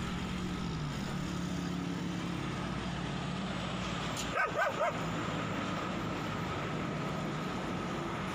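A dog barking three quick times about four and a half seconds in, over a steady background of road traffic noise.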